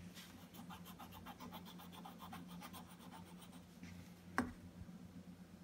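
Felt-tip marker scribbling on paper in rapid back-and-forth strokes while colouring, stopping after about three and a half seconds, followed by a single short click.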